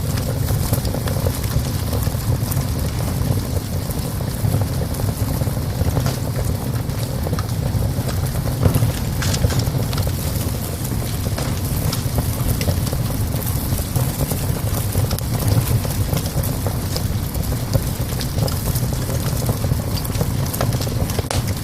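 Wood fire crackling in a small stove: irregular sharp pops and snaps over a steady low rumble.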